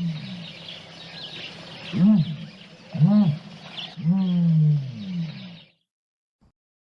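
Ostrich calling: three short, pitched calls about a second apart, the last one longer and falling in pitch, with faint bird chirps higher above. The sound cuts off suddenly near the end.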